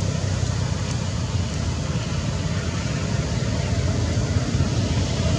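Steady low engine rumble with a hiss above it, as of a motor vehicle running, with no distinct events.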